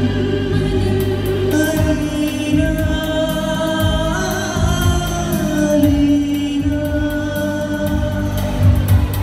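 Live singing over backing music, amplified through stage loudspeakers: accompaniment at first, then from about a second and a half in a voice enters with long held notes.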